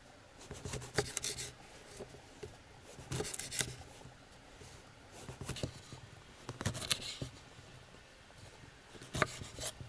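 Knife slicing sausage on a cutting board: irregular sharp taps of the blade against the board, some in quick pairs, spaced a second or more apart.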